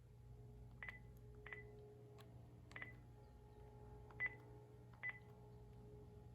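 Key beeps from a Panasonic KX-TG5432M cordless phone handset as its buttons are pressed to step through the menu. There are five short, faint beeps, each opening with a small click, spaced unevenly.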